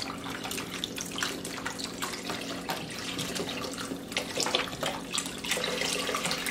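Broth pouring in steady streams from two cartons into two pots of browned meat and broth, splashing and gurgling, over a steady low hum.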